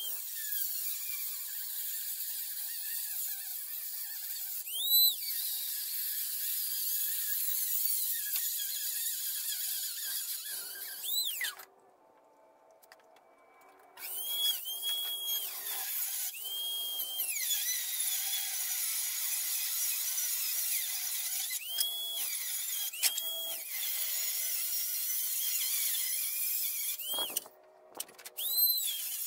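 Small handheld rotary tool cutting through the braces of a radiator mounting bracket: a steady high-pitched grinding whine with several brief higher-pitched whines. It stops for about two seconds near the middle, then starts again, and cuts out briefly near the end.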